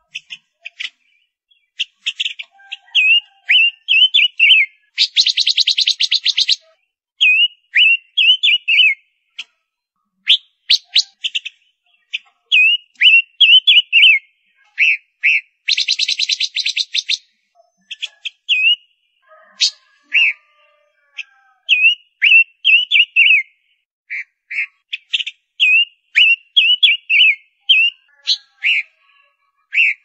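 Female silver-eared mesia singing: loud phrases of short, quick whistled notes with brief gaps between them, and a harsh rapid rattle about five seconds in and again about sixteen seconds in.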